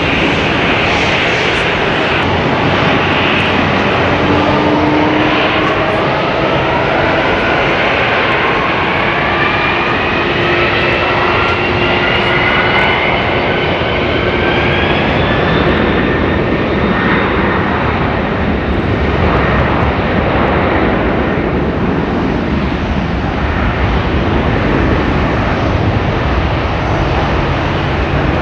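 Boeing 747 freighter's four jet engines spooling up for takeoff: a whine rises in pitch over the first half, then the engines hold a steady loud full-thrust noise through the takeoff roll.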